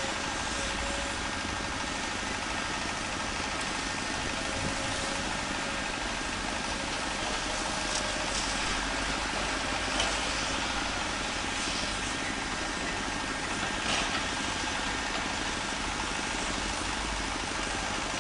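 Hydraulic excavators' diesel engines running steadily, heard from a distance, with a few short knocks of bucket and rock about 8, 10 and 14 seconds in.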